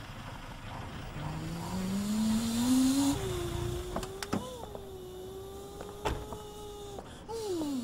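A motor's whine, rising in pitch for about two seconds and then holding steady with slight wavers. A few sharp clicks sound around the middle, and near the end the pitch dips and climbs back up.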